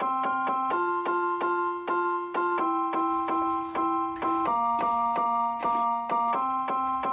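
Background music: a piano-like keyboard playing a steady run of evenly spaced notes, about three a second.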